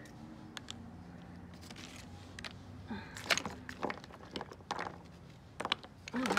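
Plastic makeup tubes and brushes being handled and set down on a wooden deck: scattered light clicks and taps, coming thicker near the end, over a faint steady hum.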